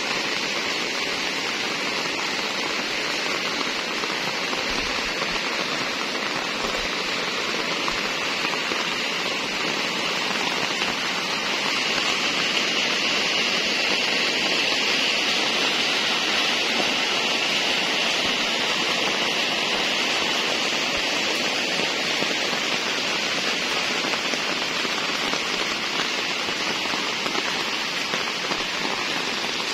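Steady rain falling on wet pavement and puddles, a little louder for several seconds in the middle.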